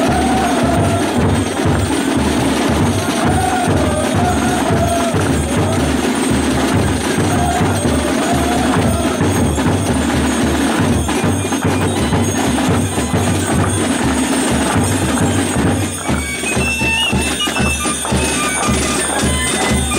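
Carnival drums beating a steady dancing rhythm under a wavering wind-instrument tune, with the jingle of the Gilles' belt bells. A higher, piping tune joins about two-thirds of the way through.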